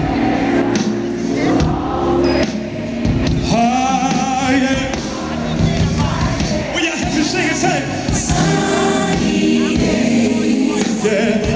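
Live R&B band playing while many voices sing along together, the audience singing the chorus at the singer's call.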